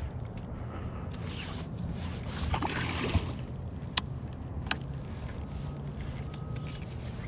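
Water swirling and splashing as a hooked king salmon thrashes at the surface close to the bank, loudest between about one and three and a half seconds in, over a steady low rumble. Two sharp clicks come near the end.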